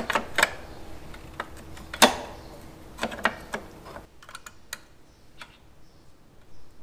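Sharp metallic clicks and clinks of hand tools and small metal parts being handled at a motorcycle engine, the loudest about two seconds in and a quick run of three about a second later; fainter, sparser clicks follow in the second half.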